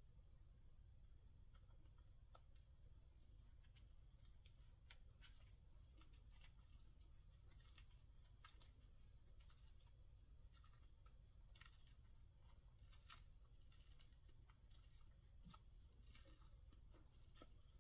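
Near silence over a low steady hum, with faint, scattered small clicks and rustles.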